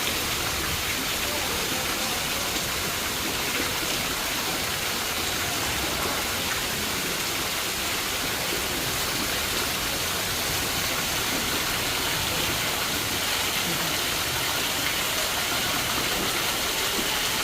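Steady heavy rain falling: a constant, even hiss with no single drops standing out.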